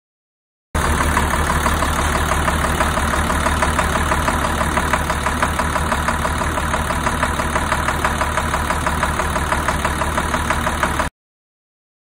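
Navistar DT466E inline-six diesel engine running steadily with a continuous knock, caused by a fuel injector stuck open. The sound starts about a second in and cuts off suddenly near the end.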